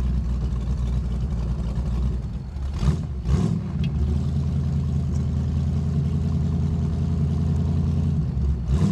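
V8 engine of an AC Cobra replica running at low road speed while still cold and on its choke, heard from the open cockpit. About three seconds in there are a couple of short knocks and the engine note changes, then it runs steadily again.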